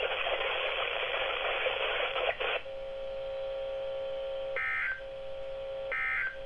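NOAA Weather Radio audio through a receiver's speaker. First about two and a half seconds of static hiss, then a steady buzzing tone. Over the tone come two short, screechy SAME digital data bursts about 1.3 s apart: the end-of-message tones that close the weekly test.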